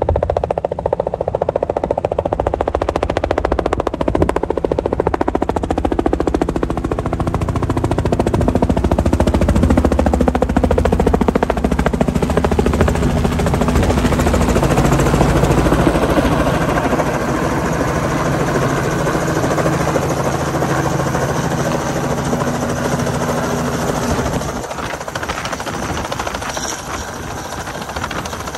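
Light two-bladed helicopter's rotor chopping in rapid, steady pulses over the engine's hum while it carries a slung load. The sound is loudest about midway as it passes close, and eases slightly in the last few seconds as it hovers low.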